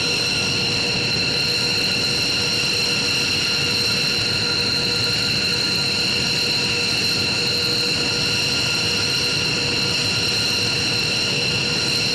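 B-2 Spirit's General Electric F118 turbofan engines idling: a steady, high-pitched whine of several held tones over an even rush of jet noise.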